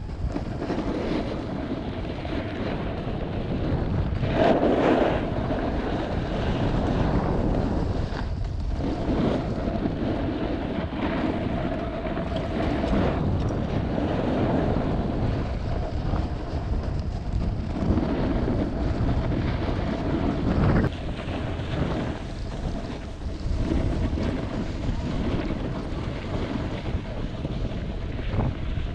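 Wind buffeting the microphone of a body-mounted action camera during a fast descent of a groomed ski run, with the scrape of the rider's edges over packed snow; the noise swells and dips, loudest about four seconds in and again about twenty-one seconds in.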